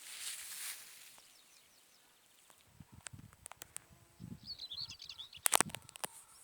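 Small birds chirping, with a quick burst of twittering a little past the middle, over a rustling start and scattered clicks and low thumps, with one loud sharp click near the end.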